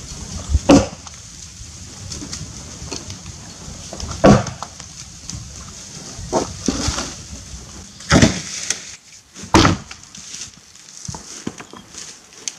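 Helko Werk Tasmanian axe chopping branches off a felled tree: about five sharp chops at uneven intervals, each a short crack of the axe biting into wood.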